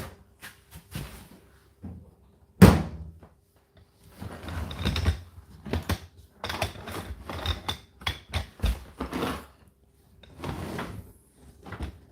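Knocks and clunks of a tumble dryer door and its contents being handled, with one sharp bang about two and a half seconds in and a busy run of clunks and rustles after it.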